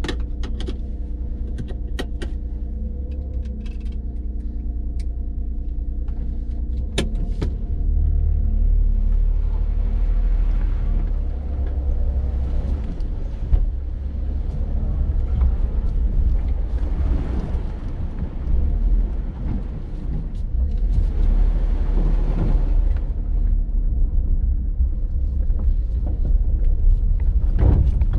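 Small car heard from inside the cabin, a Skoda Citigo: the engine runs with a steady low rumble, with a few sharp clicks in the first seconds. From about eight seconds in the car drives off along a rough dirt track, and tyre and road noise swell and ease over the rumble.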